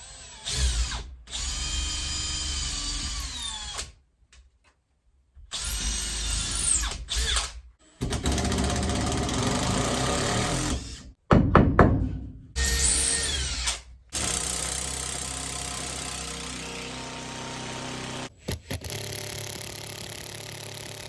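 Power drill driving screws, run in several bursts of a few seconds each with short pauses between, the motor whine rising and falling as it speeds up and slows. The screws fix a mounting point for a ceiling fan into the framing.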